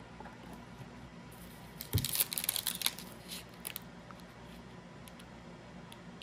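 Foil trading-card pack wrapper crinkling and tearing as it is pulled open by hand, a burst of crackling about two seconds in that lasts about a second, followed by a few small crinkles and clicks.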